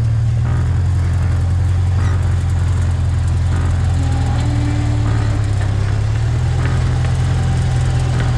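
Engine of a homemade tracked vehicle running steadily at idle: a loud, even, low drone.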